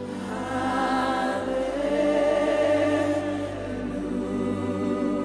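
Live gospel worship music: voices singing long held notes with vibrato over a steady sustained accompaniment.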